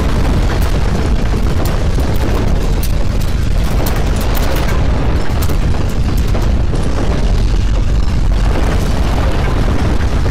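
Earthquake rumble sound effect: a loud, continuous deep rumble with scattered crackles and rattles on top, marking strong shaking.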